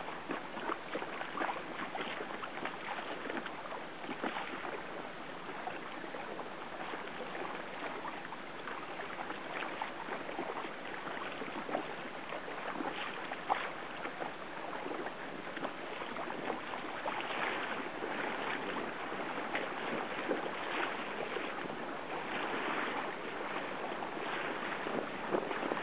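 Water rushing and splashing around a small sailing boat, with wind, and many small splashes throughout.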